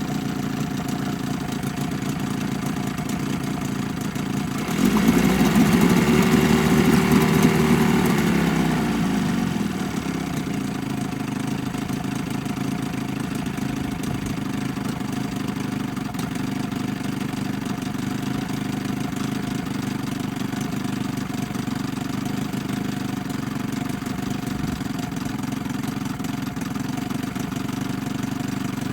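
1980 Evinrude 15 hp two-stroke twin outboard idling, cold, with an idle that is not smooth. About five seconds in it speeds up, runs faster for a few seconds, then drops back to a steady idle.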